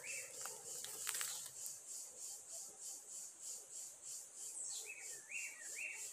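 Insects chirping in a steady high pulsing, about four pulses a second, with a bird calling a three-note phrase at the start and again near the end. A short burst of clicks about a second in.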